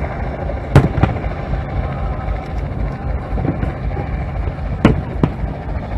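Aerial fireworks shells bursting: two pairs of sharp bangs, one about a second in and one near the end, over a steady low rumble.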